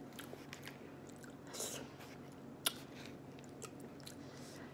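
Close-miked chewing and lip smacking on a mouthful of rice and beans: soft wet clicks and smacks, with one sharper click a little past halfway.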